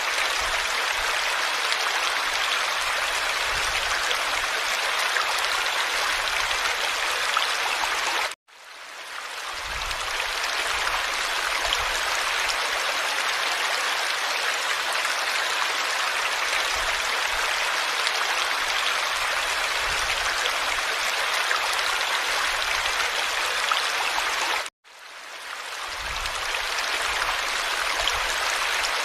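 Steady rush of running water, like a stream. It cuts out abruptly twice, about eight seconds in and a few seconds before the end, and fades back in over a second or two each time.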